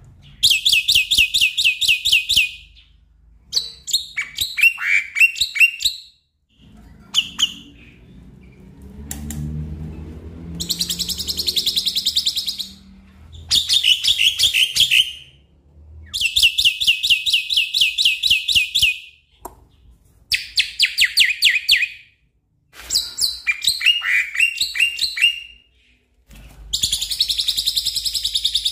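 Black-winged myna (jalak putih) singing: about eight bursts of fast, chattering repeated notes, each two to three seconds long with short pauses between. A low rumble sits under the bird in the middle stretch.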